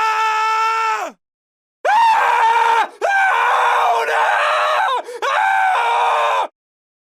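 A man screaming: a high scream held at a steady pitch ends about a second in with a downward slide, then after a short pause come three more long screams in quick succession.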